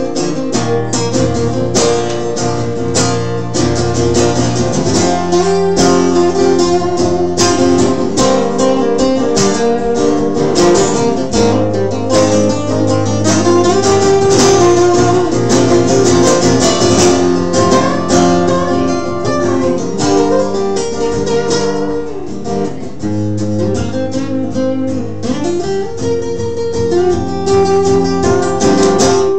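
Live acoustic guitar strummed steadily through a song's instrumental break, with a sliding melody line over the chords.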